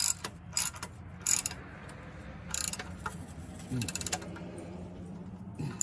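Irregular metallic clinks and clicks of a steel bracket being handled and fitted against a tractor engine, with a quick run of clicks about four seconds in, over a steady low hum.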